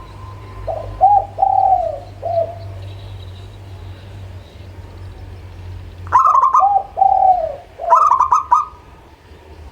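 Zebra dove (perkutut) cooing: two phrases of short, quick coo notes, the first about a second in and the second, opening with sharper, higher notes, about six seconds in. A low steady hum runs underneath until about six seconds in.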